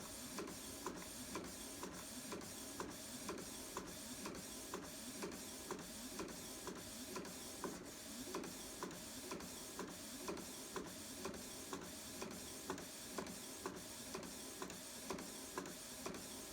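Canon Pixma iX6850 inkjet printer printing a photo with freshly cleaned print heads: the carriage shuttles back and forth over a steady whirring hiss, with a sharp click about twice a second.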